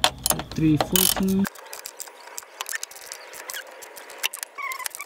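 Socket ratchet clicking in quick runs of sharp clicks as it tightens the 14 mm nuts on the coilover's top-mount studs.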